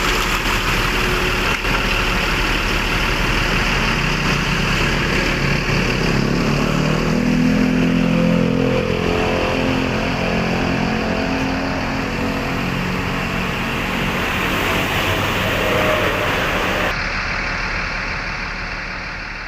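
Large bus engine running under way with road and wind noise; from about a third of the way in, its tone rises and falls for several seconds.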